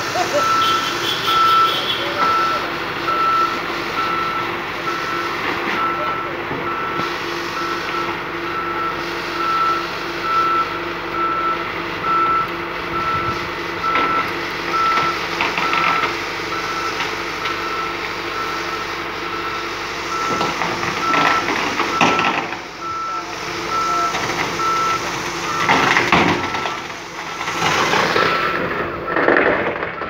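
Reverse alarm on a Case road roller beeping steadily in an even on-off rhythm as the roller backs down off a flatbed truck, over its diesel engine running. Louder, rougher noise swells in near the end.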